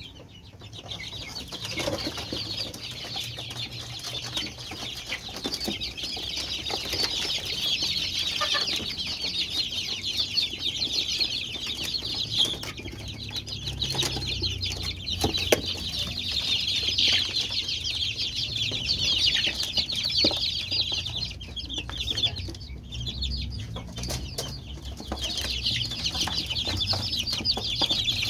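A flock of about forty five-week-old kampung chicks peeping nonstop, many high calls overlapping, with a low hum underneath and a few knocks.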